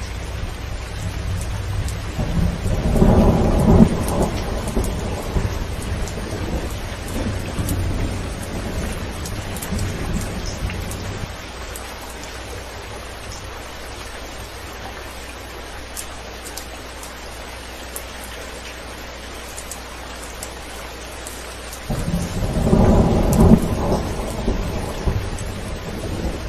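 Rain falling steadily on a zinc roof, with small drop clicks scattered through it. Thunder rolls in about three seconds in and rumbles on until around eleven seconds; after a stretch of rain alone, a second roll of thunder starts about twenty-two seconds in.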